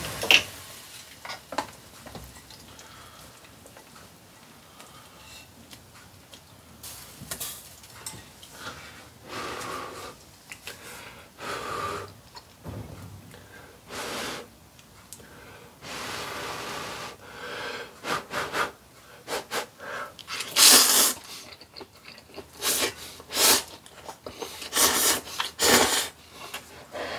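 A man slurping and eating hot ramen noodles, with short breathy bursts of blowing and sucking in that come more often in the second half, the loudest slurps about two-thirds of the way in.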